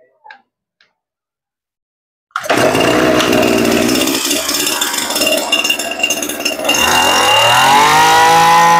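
Small two-stroke engine of a 23cc Tanaka TBC230 brush cutter starting abruptly a little over two seconds in and running unevenly at low speed. About seven seconds in it is throttled up, its pitch rising to a steady high-speed run.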